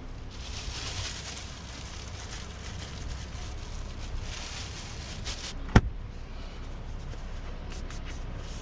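Clear plastic bag crinkling and rustling as it is handled with squid parts inside, followed about six seconds in by a single sharp knock, with a low rumble underneath.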